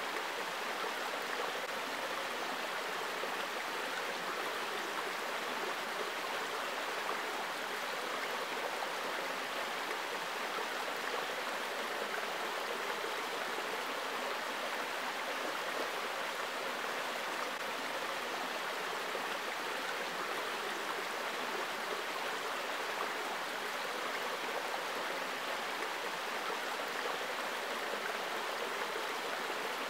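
Small rocky forest creek running, a steady rush and babble of shallow water over stones.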